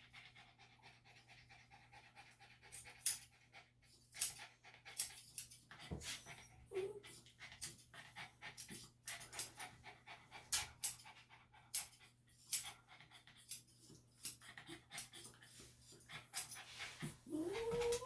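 Senior Bichon/Shih Tzu cross panting, while grooming scissors snip around his foot in sharp, irregular clicks, about one or two a second. Near the end there is a brief rising whine.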